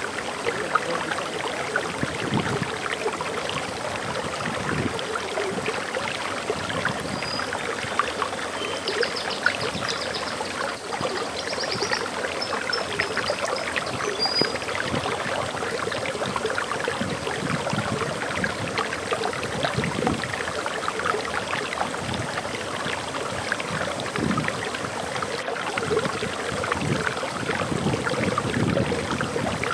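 Water running over a small waterfall: a steady rushing with frequent splashes. A few faint, high bird chirps come from about a quarter to halfway through.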